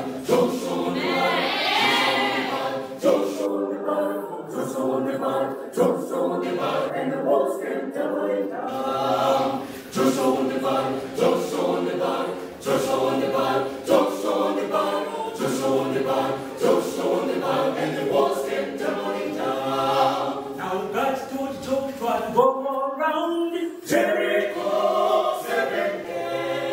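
A small a cappella vocal group of men and women singing unaccompanied in several parts.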